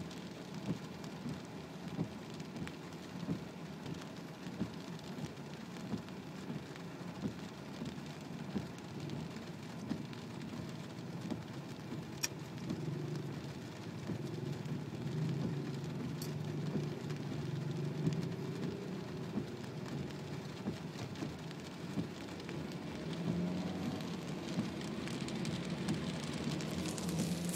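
Heavy rain beating on a car's roof and windshield, heard from inside the cabin, with the windshield wipers sweeping at a regular beat. A low engine and tyre drone grows louder in the second half.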